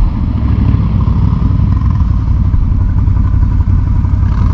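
ATV (quad bike) engine running steadily close by, a dense low sound of rapid, even firing pulses with no change in speed.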